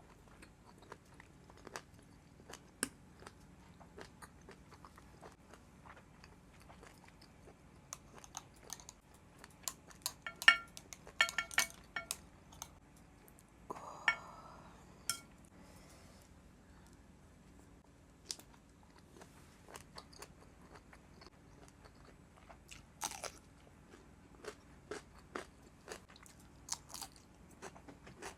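Close-miked chewing and biting of boiled octopus, a run of sharp wet mouth clicks that is busiest about ten to thirteen seconds in.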